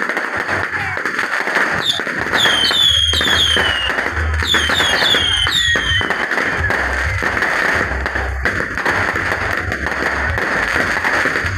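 Fireworks crackling continuously over loud music with a heavy pulsing bass beat from a street sound system. A run of high, falling whistles comes between about two and six seconds in.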